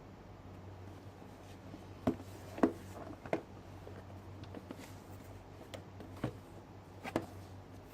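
Cardboard product box being handled and turned over by hand: a few light knocks and taps, the first three in quick succession about two to three seconds in and two more near the end, over a low steady hum.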